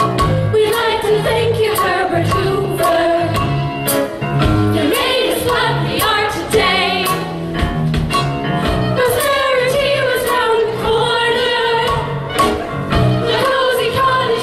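Musical-theatre cast singing a show tune together, with instrumental accompaniment.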